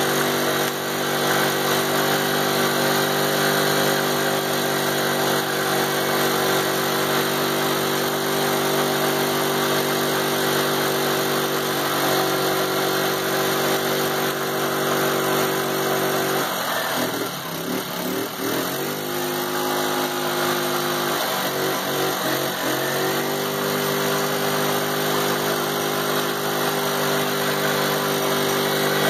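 A 50cc ATV engine is held at full revs against the rev limiter while its chained-down rear tires spin in a burnout on wet ground. The revs dip twice, about halfway through and again a few seconds later, then climb back to a steady high pitch.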